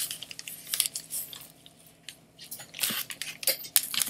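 Irregular light clicks, taps and rustles of food and containers being handled while a salad is put together, with a quieter spell in the middle.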